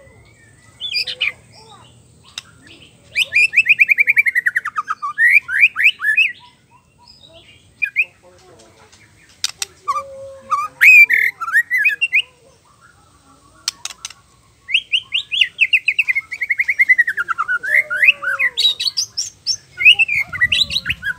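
Male white-rumped shama singing loud, varied phrases. Rapid trills fall in pitch about 3 seconds in and again from about 15 seconds, with short whistled notes and sharp clicks between them.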